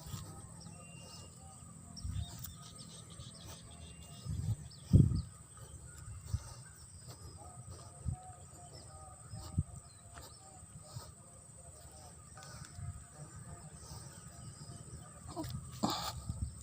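Outdoor rural ambience: small birds chirping now and then, over a faint steady high hiss, with occasional low thumps on the microphone, the loudest about five seconds in.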